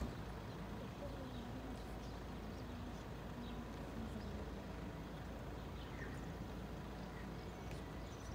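Car engine idling with a low, steady hum, with a few faint short chirps above it.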